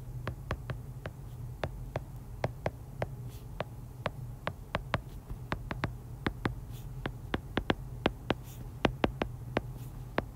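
Stylus tip tapping on a tablet's glass screen during handwriting: irregular sharp ticks a few times a second, over a steady low hum.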